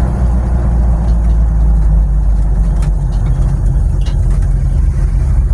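Loud, steady low engine and road drone inside the cabin of a moving vehicle that has no interior trim, no door seals and holes in the body, with a couple of faint clicks.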